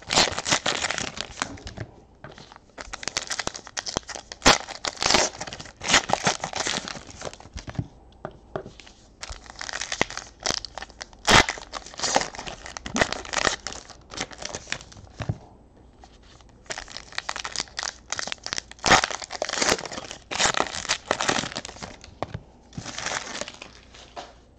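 Wrappers of 2018 Panini Classics football card packs being torn open and crinkled by hand, several packs one after another. The crackling comes in spells of a few seconds, with short pauses between them and sharp snaps along the way.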